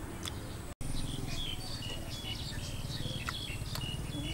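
Small birds chirping in short, high, repeated notes over a low steady rumble, with a few faint clicks. The sound drops out for an instant just before the one-second mark.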